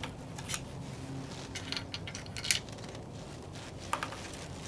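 A handful of light, irregularly spaced clicks and taps, small handling noises at the shooting bench, the sharpest about halfway through.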